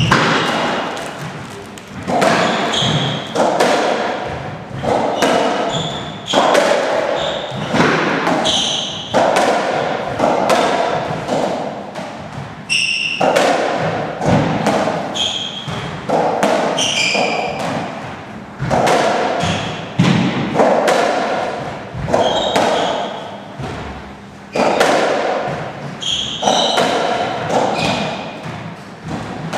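Racketball rally on a squash court: the rubber ball is struck by the racket and hits the walls with a sharp thud about every one and a half seconds, each hit echoing in the court. Between the hits there are short high squeaks from court shoes on the wooden floor.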